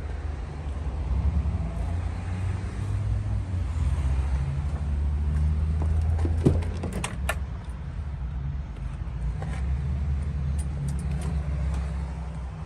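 Pickup truck engine idling, a steady low rumble, with a few sharp clicks about halfway through.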